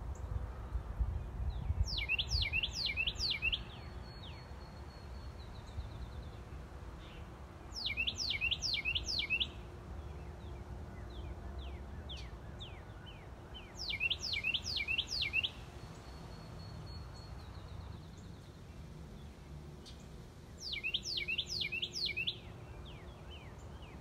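A songbird singing four short phrases, each a quick run of five or six high notes sliding downward, about six seconds apart. Between phrases a second bird gives a faint high trill, over a low steady rumble.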